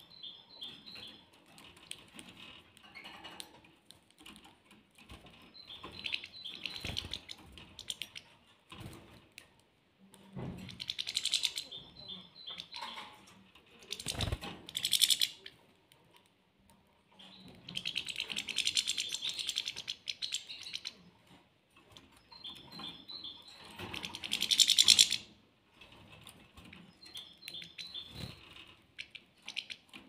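Caged goldfinches chirping and twittering in short bursts, the loudest spells about a third of the way in and again near the end. A few wing flutters and sharp knocks from the birds moving about the cage come in between.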